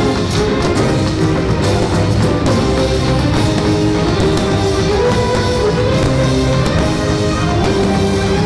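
Loud show music, rock-style with guitar.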